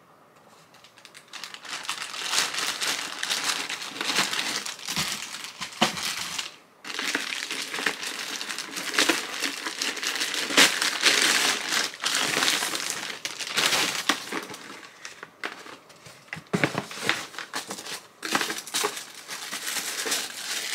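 Plastic packaging crinkling and rustling as a package is unwrapped by hand: a plastic bag and a poly mailer, then paper in a shoebox. The crinkling starts about a second in and keeps up densely, with a brief pause partway through.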